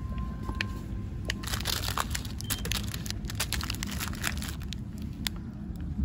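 Supermarket background: a steady low rumble with scattered clicks and crinkles of handling, and a couple of brief faint beeps.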